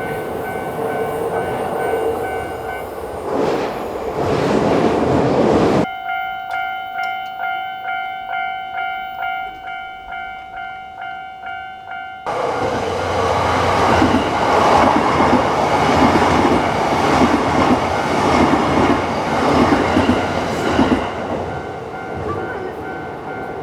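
Japanese railway crossing warning bell clanging while an electric train passes. About six seconds in the train noise cuts off suddenly, leaving the bell alone at about two strikes a second. A train then passes loudly again, fading near the end while the bell keeps ringing.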